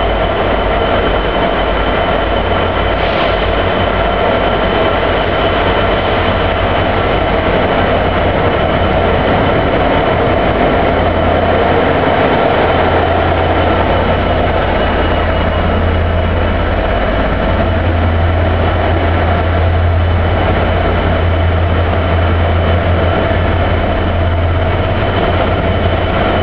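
Class 66 diesel-electric freight locomotive passing at slow speed, its two-stroke V12 diesel engine running steadily, then its train of covered hopper wagons rolling past on the rails, with a steady low rumble throughout.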